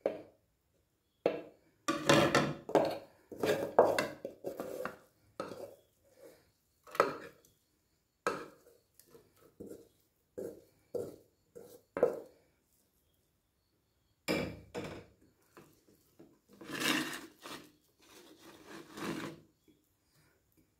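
A spatula scraping and knocking against the inside of an aluminium pot as thick cooked pickle is scooped out, in irregular bursts of strokes with short pauses between.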